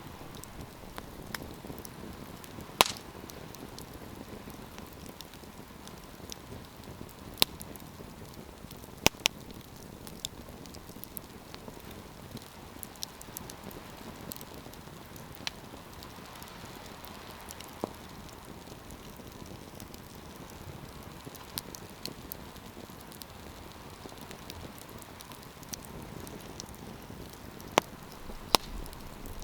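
Campfire of burning wood crackling: a steady low hiss of flames with scattered sharp pops, a few of them loud, about 3 s in, around 7 and 9 s, and twice near the end.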